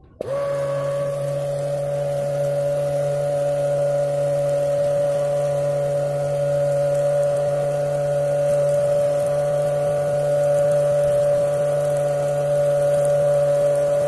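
Small DC motor of a homemade cardboard-and-plastic-bottle vacuum cleaner running steadily as it sucks up sawdust: a constant whine over a low hum, starting abruptly just after the beginning.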